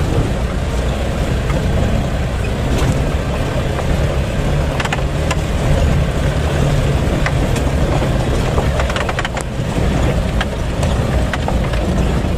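Isuzu Elf microbus's diesel engine running steadily under load, heard from inside the cabin, with irregular knocks and rattles throughout.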